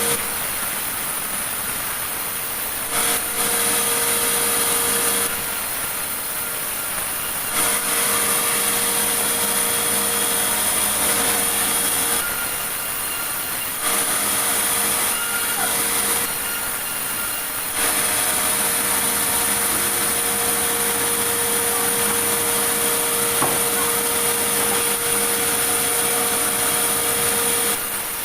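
Sawmill saw running steadily while cutting meranti wood, with a steady machine hum under it. Louder stretches of cutting noise come and go every few seconds.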